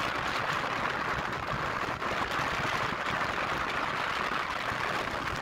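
Steady, even rushing noise of a motorcycle on the move: wind and road noise with no clear engine note.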